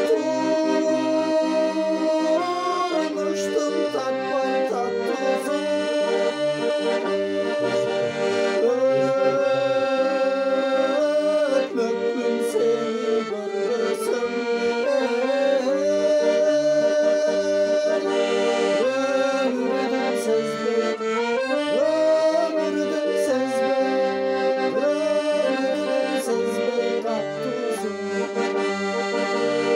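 Piano accordion playing a folk tune, with short left-hand bass notes pulsing steadily under held melody chords. A man's voice sings along.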